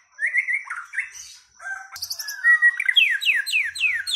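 White-rumped shama (murai batu) singing a loud run of clear whistled notes that sweep downward, speeding up in the second half into a quick string of falling notes, about four a second. It is singing hard while being set against a rival male shama.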